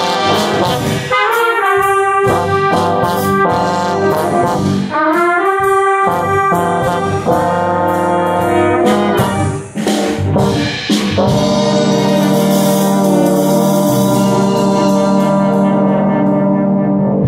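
Jazz band brass section playing, a trombone right at the microphone with trumpets, in short punchy figures with a few sharp accented hits. About two-thirds of the way through the band settles onto one long held chord, the ending of the tune, which cuts off together at the end.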